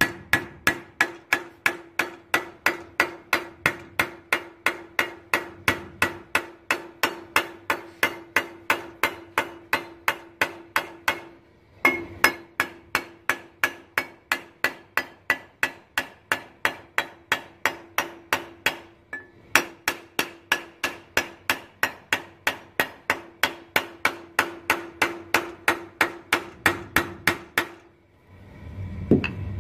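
Rapid, evenly spaced hammer strikes on sheet metal, about four a second, with a steady metallic ring under them. The panel's edge is being worked. The strikes pause briefly twice and stop shortly before the end.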